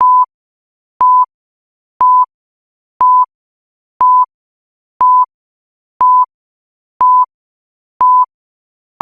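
Digital countdown timer beeping once a second to count off the seconds: short, single-pitched electronic beeps, each about a quarter second long with a faint click at its start, nine in a row.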